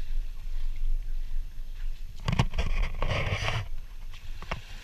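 Shallow water splashing as a person wades through an alligator pool and hauls an alligator through the water, loudest around the middle. Under it runs a low steady rumble, with a few sharp knocks.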